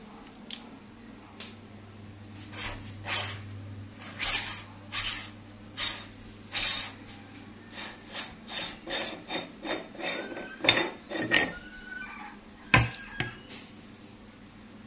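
Metal meat-grinder parts being taken apart and scraped clean: irregular clinks, knocks and scrapes of metal on metal and against a metal tray, with a few sharp clanks, the loudest near the end.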